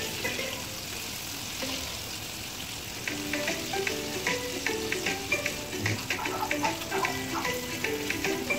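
Cornstarch-coated pork ribs deep-frying in hot oil in a wok: a steady sizzle with crackles that grow busier about three seconds in. Background music plays over it.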